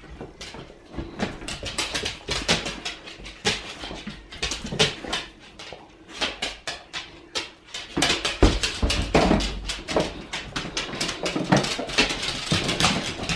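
Pit bull whimpering at a dangled chew toy, with many sharp clicks of claws on a hardwood floor as the dogs move about.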